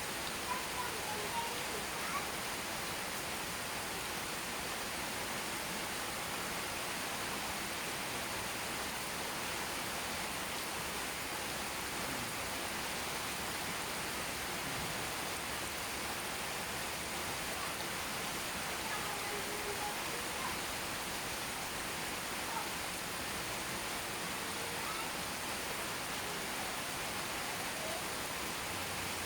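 Steady rainfall, an even hiss that holds at one level throughout, with a few faint brief tones near the start.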